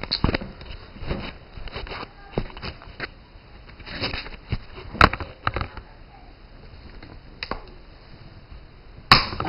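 Scattered handling noises, clicks, knocks and rustling, as a knife cuts a plastic zip tie off a BB rifle. There is a sharp knock about five seconds in and a harder knock near the end.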